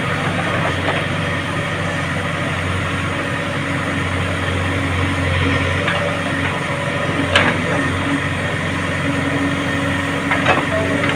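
JCB excavator's diesel engine running steadily under work, with a sharp knock about seven seconds in and another near the end.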